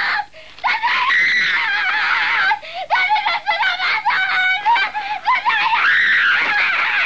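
A woman's voice in long, loud, high-pitched cries with a wavering pitch, broken by short pauses.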